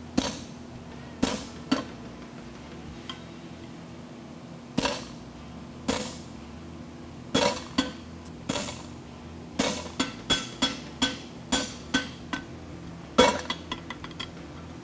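Hand hammer striking a tool set in the eye of a red-hot steel fuller blank on an anvil, each blow a sharp metallic clang with a short ring. About twenty blows, spaced out at first and coming in quick runs in the second half, the loudest near the end.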